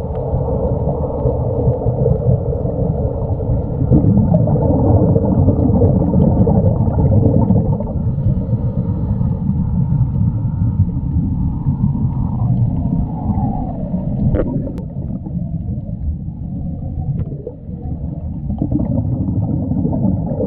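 Muffled underwater noise picked up by a submerged camera: a steady low rumble with gurgling water and air bubbles.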